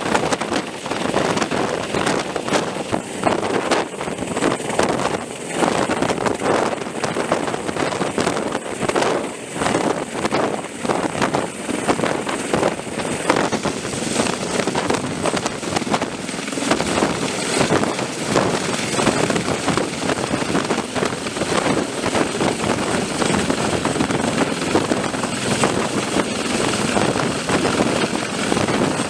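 Sikorsky CH-53E Super Stallion heavy-lift helicopter, with its three turboshaft engines, hovering close overhead and lifting an externally slung vehicle: loud, steady rotor noise with a pulsing blade beat throughout, and rotor downwash blowing across the microphone.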